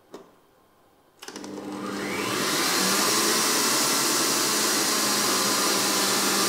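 Electric stand mixer switched on with a click of its speed knob; about a second later its motor starts, speeds up over a second or so, and then runs with a loud, steady whirr as it beats butter and boiled condensed milk into a cream.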